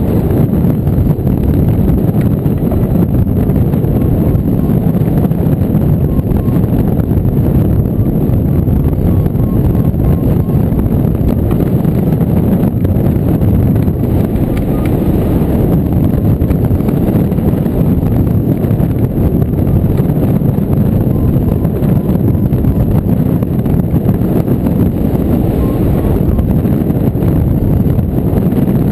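Rushing airflow buffeting the microphone of a camera mounted on a hang glider in flight: a loud, steady, low rumble of wind with no break.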